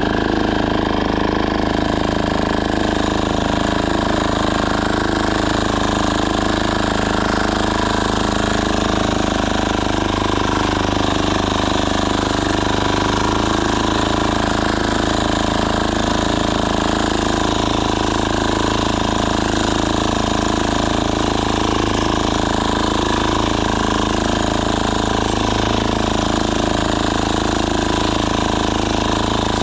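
Diesel walk-behind tractor engine running steadily, at an even level throughout.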